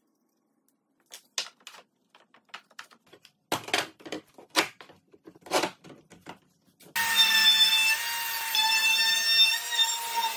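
Scattered clicks and knocks of wooden box parts and trigger bar clamps being set in place. About seven seconds in, a compact trim router cuts in and runs steadily with a high whine.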